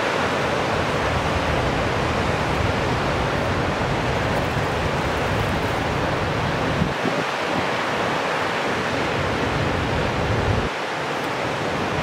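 Wind buffeting the microphone: a fluctuating low rumble over a steady rushing hiss, the rumble dropping away briefly about seven seconds in and again shortly before the end.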